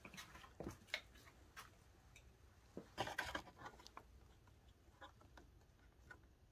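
Faint handling noise: scattered small clicks and rustles of a plastic wiring connector and cables being handled, with a quick cluster of clicks about three seconds in.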